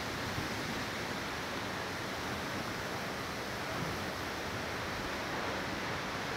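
Strong storm wind rushing: a steady noise with only slight swells and no distinct bangs.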